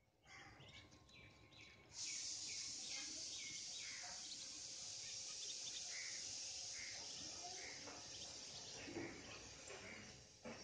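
Muscovy ducklings peeping, short high peeps one or two a second, over a steady high hiss that comes in suddenly about two seconds in.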